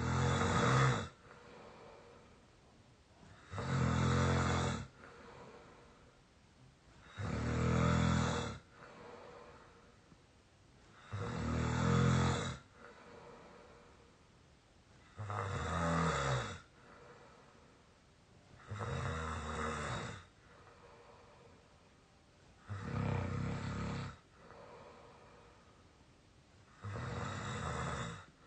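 A young adult asleep, snoring in a squeaky way: eight snores about four seconds apart, each lasting a little over a second, some wavering in pitch, with quiet breathing between them.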